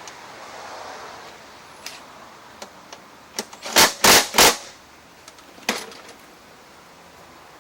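Mower parts being knocked during wheel work: a few light clicks, then three loud sharp knocks in quick succession about four seconds in, and one more knock a little later.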